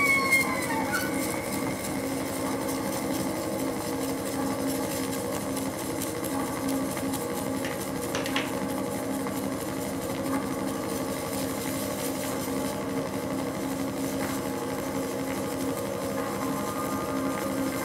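Live ambient drone music from modular synthesizer and harmonium: a steady held chord with a fine, even, machine-like pulsing texture over it. A tone that bends up and back down fades out about a second in.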